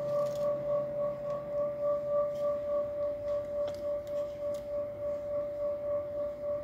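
A steady high electronic tone with one faint overtone, wavering in loudness about four times a second, with a few faint clicks over it.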